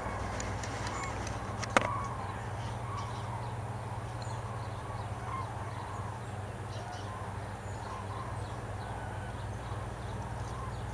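A flock of migrating common cranes calling high overhead: many short, faint calls over a steady low background hum, with one sharp click a little under two seconds in.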